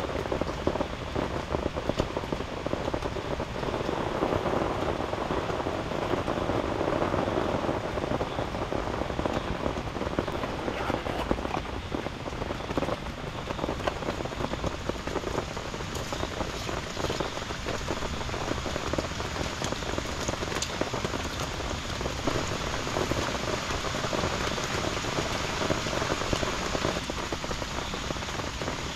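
Heavy rain falling on a tent, heard from inside: a steady, dense patter with many sharper individual drop hits.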